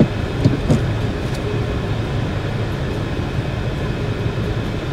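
Renault Clio's engine running steadily, heard from inside the cabin as the car moves off in gear, with a couple of short clicks in the first second.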